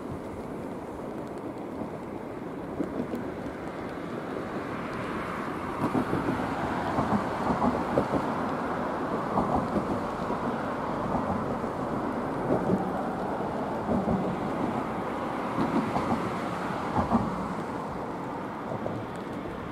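Wind rushing on the microphone, stronger from about five seconds in, with gusty peaks, then easing off near the end.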